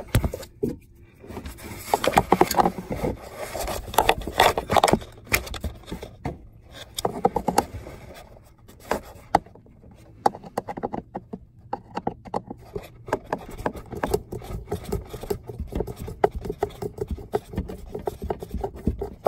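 Irregular scraping, rubbing and clicking of hands and a screwdriver working at the plastic recirculation-door actuator and HVAC housing under a truck's dashboard. There are quieter gaps in between.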